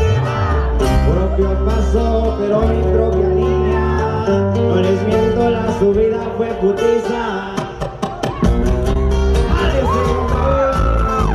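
Live band music through a stage PA: a vocalist singing into a microphone over plucked guitars and a heavy, deep bass line.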